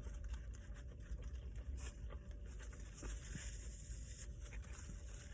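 Quiet eating and food-handling noises: soft scratches and light taps over a steady low hum, with a brief hiss about three seconds in.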